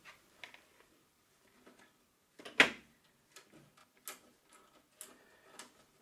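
Light clicks and taps of hands fastening a fan cable inside a desktop computer's metal case, with one sharper click about two and a half seconds in and smaller ticks later.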